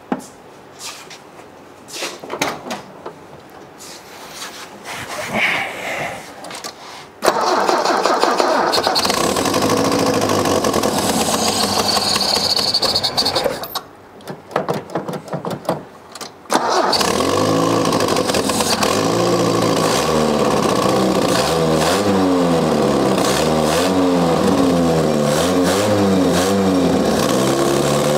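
A 1977 Toyota Celica TA22's four-cylinder engine on its first start after about 30 years. After some knocks of hands and tools, it fires about seven seconds in on fuel poured into the carburettor, runs for about six seconds and cuts off. It fires again about halfway through and keeps running, its revs rising and falling unevenly.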